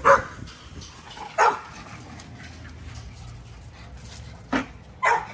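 Puppy barking in play as two puppies wrestle: four short barks, two near the start and two near the end.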